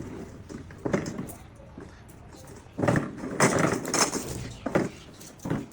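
A man's voice reciting the Quran in Arabic, in short phrases with pauses between them.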